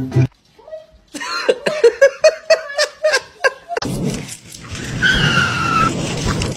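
A person laughing in short, rapid bursts. After that a steady rushing noise takes over, with a brief falling tone in it.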